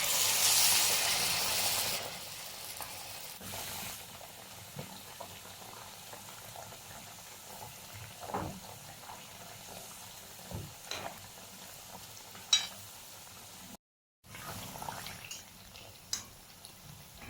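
Chicken chana dal vadas deep-frying in hot oil. A loud burst of sizzling comes as they go in, then a quieter steady sizzle with scattered pops and crackles.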